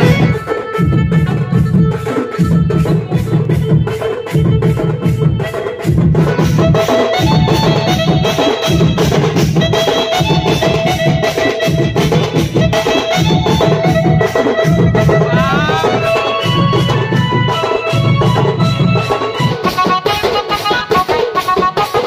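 Loud dance music with a fast, steady drum beat, a deep pulsing bass and a melody over it. A rising swoop comes about fifteen seconds in, and the bass drops out near the end.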